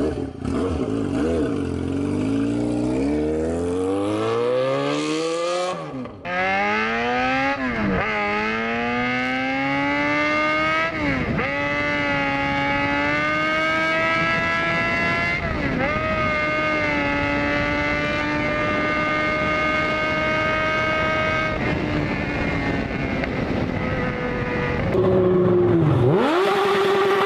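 Motorcycle engine accelerating hard through the gears: the pitch climbs, drops sharply at each upshift about four times, then holds high and steady at speed. A separate rev near the end dips and climbs again.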